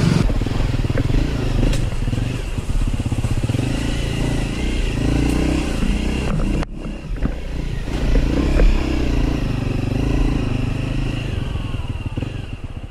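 Off-road dirt bike engine running as it is ridden over a rough trail, its note rising and falling with the throttle, with rattle and wind noise over it. The sound breaks off briefly about halfway through, then the engine resumes.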